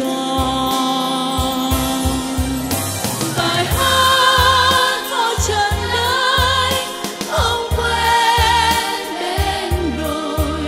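Music: a song with held, wavering sung notes over a band backing with a steady bass beat.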